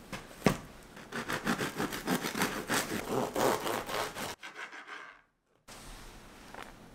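A bread knife sawing back and forth through a crusty whole-wheat loaf on a plastic cutting board, a quick run of rasping strokes for about three seconds. It follows a single thump about half a second in and cuts off suddenly.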